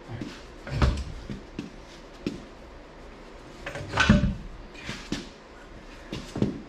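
A few separate metallic knocks and clunks from parts being handled on a bare truck frame, the loudest about a second in and about four seconds in, with another near the end.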